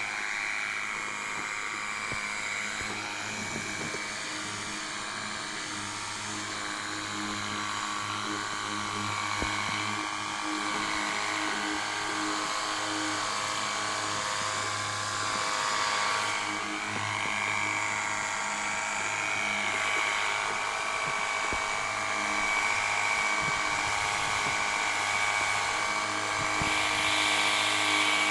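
Xiaomi JIMMY JW31 pressure washer running steadily: its electric pump whines with a constant tone while the water jet hisses against the car's paintwork, getting a little louder near the end.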